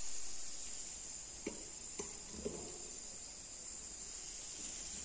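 Crickets chirring steadily and faintly in the background, with three light clicks, like a metal spatula tapping the frying pan, about a second and a half, two and two and a half seconds in.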